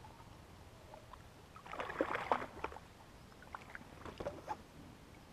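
Water splashing and sloshing against a small fishing boat, in two short bouts, the first about two seconds in and a weaker one about four seconds in, with a few light knocks.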